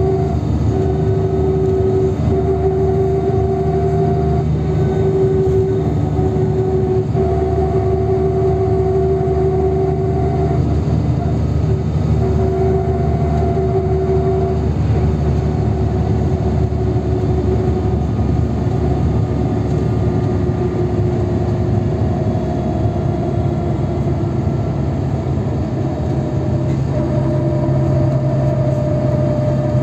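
Inside a NefAZ 5299 city bus under way: the steady drone of the engine and drivetrain with road noise from the tyres. A whining tone holds through the first half and fades out around the middle. A slightly higher whine sets in later on.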